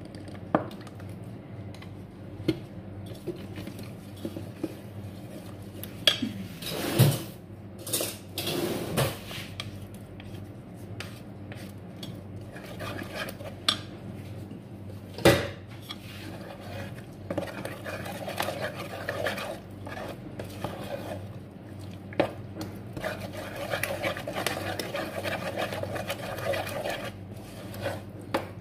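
A utensil clinking and knocking against a mixing bowl, with a few sharp knocks, the loudest about halfway through; in the last third it turns into steady stirring of the egg and cream mixture.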